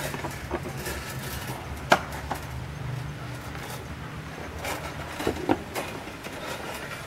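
Wire being handled and twisted by hand around a sack: scattered faint clicks, with one sharp click about two seconds in, over a steady low hum.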